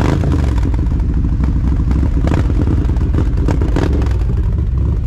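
Harley-Davidson Road King V-twin running very loud, with a few short throttle blips over its lumpy idle.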